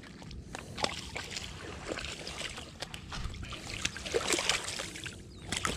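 Light lapping of lake water at a sandy shore, with scattered rustles and soft knocks from handling close to the microphone.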